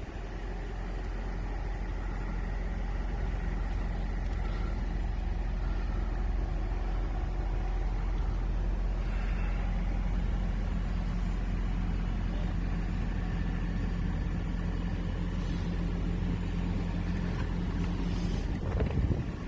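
Steady low rumble of a running 2023 Toyota Camry Hybrid heard from inside the cabin. It swells over the first couple of seconds, a steady hum joins it from about ten seconds in, and there is a brief sweep in pitch near the end.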